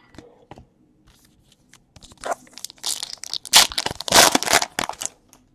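Clear plastic wrapper handled close to the microphone: a few light clicks, then from about two seconds in a run of loud crinkling and tearing crackles that peaks near the end.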